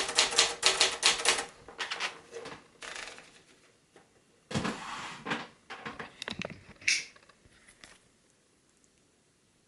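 Brother JP-7 manual typewriter being typed on: a quick run of keystrokes, then a few scattered strokes. About halfway through comes a heavier stroke followed by a string of clicks, which stop a few seconds later.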